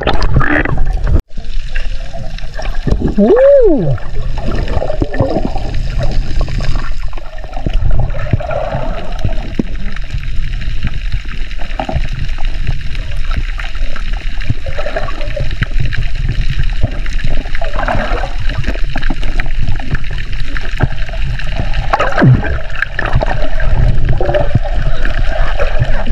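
Muffled underwater noise from a submerged camera: water sloshing and bubbling around the microphone with a low rumble and irregular small knocks. One short rising-and-falling tone sounds about three seconds in.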